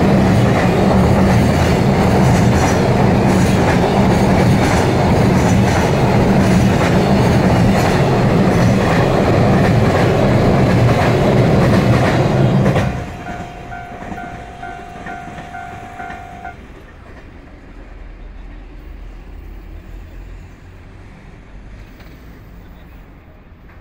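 A loaded freight train's Koki 107 container flatcars rolling past close by, a loud steady rumble and clatter of wheels on rail. About halfway through, the last wagon goes by and the sound drops sharply to a fading rumble as the train draws away. A steady tone with a pulsing beep above it follows for a few seconds and then stops.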